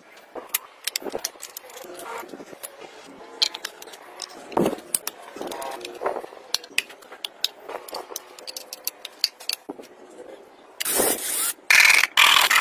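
Fast-forwarded workshop handwork: a rapid jumble of small clicks, clinks and scrapes from parts and tools being handled. Near the end come two loud hissing bursts.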